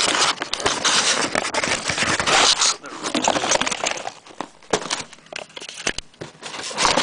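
Cardboard box and packaging rustling and scraping as the contents are pulled out by hand, loudest for the first three seconds, then scattered clicks and knocks.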